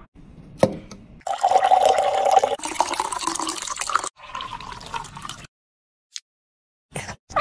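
Milk poured from a carton into a tall glass, the pitch of the filling rising slowly as it fills, then a second shorter pour that stops about five and a half seconds in. A short knock sounds just before the first pour.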